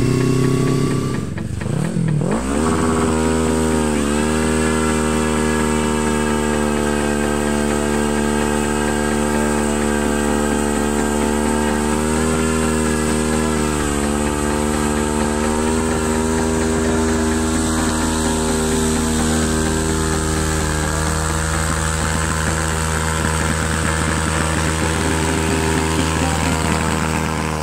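Yamaha YFZ quad with a swapped-in Kawasaki Z650 engine held at high revs through a long burnout, spinning its rear tyres on wet asphalt. The engine note stays nearly steady, wavering and dipping slightly now and then.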